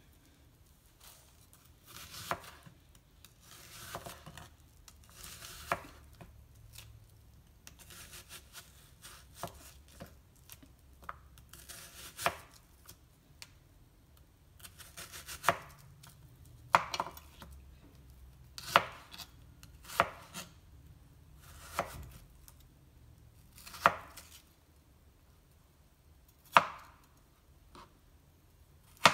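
Kitchen knife slicing a white onion into strips, each stroke ending in a knock of the blade on the hard work surface. The cuts come at uneven intervals of one to three seconds, softer at first and sharper knocks in the second half.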